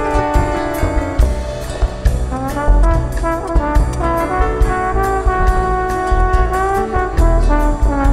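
Slide trombone playing a solo melody of held and gliding notes over a live band, with keyboards, bass and a steady drum beat behind it.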